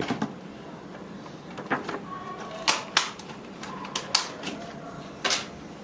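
Handling noise from small hard plastic doorbell parts being picked up and set down. It comes as a handful of sharp clicks and taps at irregular intervals.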